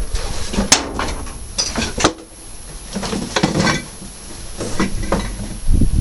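Small metal engine parts and screws being handled and set down on a bench: a series of irregular clinks and knocks, with a sharper clack about a second in and another near two seconds.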